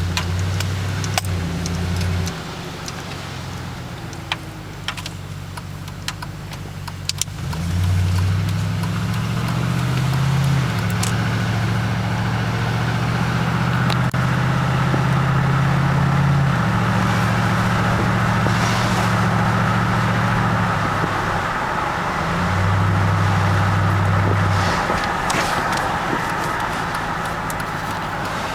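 2006 Trailblazer SS's LS2 V8 running after a cold start, in the state in which the owner reports piston slap. Its engine speed holds steady and shifts up and down several times, with scattered sharp clicks in the first several seconds.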